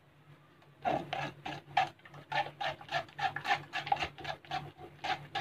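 Spoon scraping and stirring watermelon pulp against a stainless steel mesh strainer to push the juice through, in quick rhythmic strokes of about four a second, starting about a second in.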